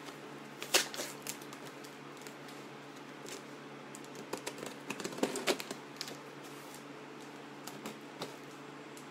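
Scissors snipping and scraping through packing tape on a cardboard box, with the tape and cardboard crackling. The sharp clicks come irregularly: the loudest about a second in, a cluster around the middle and a few more near the end.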